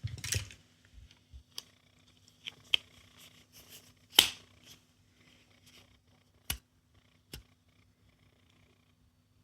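A few sharp, scattered plastic clicks and taps from small toys being handled, with the loudest one just after the four-second mark, over a faint steady low hum.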